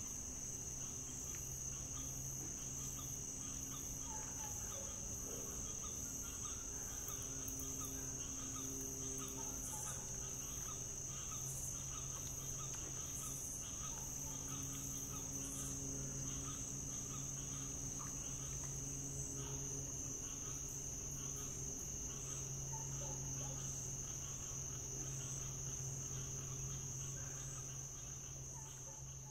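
A steady, unbroken chorus of night insects, high-pitched and even, over a low hum, fading out near the end.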